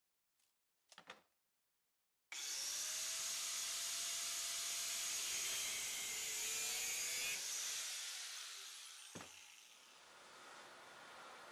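Angle grinder with an abrasive cut-off wheel cutting through a threaded steel rod clamped in a vise. It starts abruptly about two seconds in and cuts for about five seconds. It then falls away with a falling whine as the wheel winds down, followed by a sharp click and a fainter steady noise.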